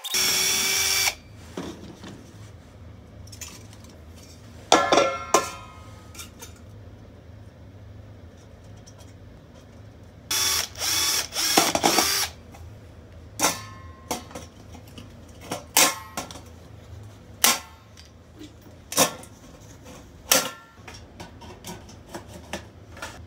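Cordless drill running in bursts as it drills and drives into thin stainless-steel sheet: a burst of about a second at the start, a shorter one near five seconds, and a longer broken run near ten to twelve seconds. After that come a string of short sharp clicks and knocks, one every second or two, over a low steady hum.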